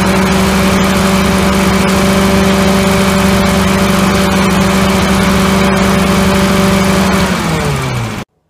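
A 31-horsepower fuel-injected Kohler twin-cylinder engine running steadily at roughly 2,500 to 3,000 rpm. About seven seconds in, its pitch drops as it winds down, and then the sound cuts off abruptly.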